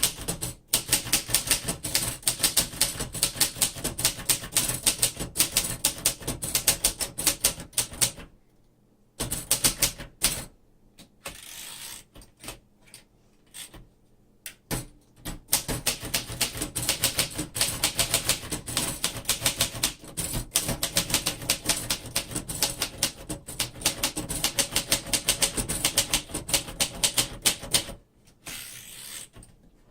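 1950 Royal Companion manual portable typewriter being typed on: quick runs of key strikes clacking against the platen, broken by a few short pauses, with a slower, sparser patch of strokes in the middle.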